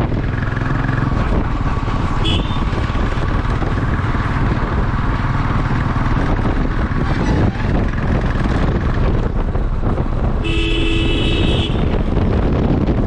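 A vehicle on the move, with low wind rumble on the microphone. A horn toots briefly a couple of seconds in, and a horn honks for about a second near the end.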